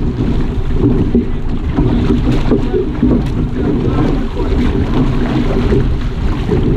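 Wind buffeting the microphone of a camera mounted on an outrigger canoe underway at sea, a steady loud rumble, over water rushing along the hull and paddles splashing.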